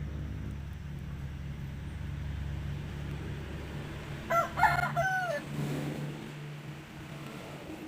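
A rooster crows once, a short crow of about a second, a little past the middle. A low steady hum runs underneath, its deepest part dropping out just after the crow.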